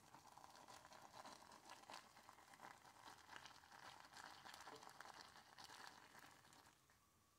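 Quiet wet swishing and squishing of a silicone whisk stirring thick broccoli cheddar soup in a metal saucepan, with small ticks as the wires touch the pan; it stops near the end.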